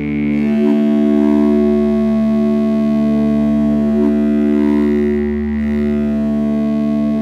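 Modular synthesizer drone played through studio monitors: a sustained chord of steady tones that swells slowly, with a small blip in the notes about every three and a half seconds.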